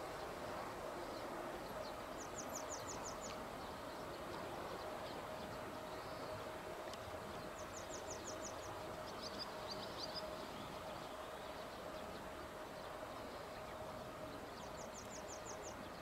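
An E493 series train coupled to an EF64 electric locomotive pulls slowly away, giving a faint, steady hum and rumble. A small bird sings a short, rapid high trill of about eight notes three times, several seconds apart.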